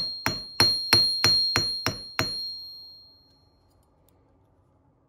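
Hammer striking a copper wire on a steel anvil eight times, about three blows a second, flattening the wire. Each blow leaves a high ringing tone from the anvil, which dies away about a second after the last strike.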